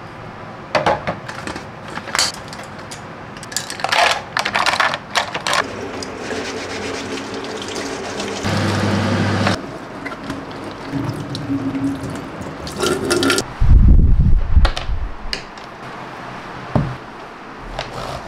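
Water running from a kitchen tap into a steel sink as a mat is rinsed and rubbed under it, with scattered clicks and clatter of small objects being handled and a few loud low thumps a little after the middle.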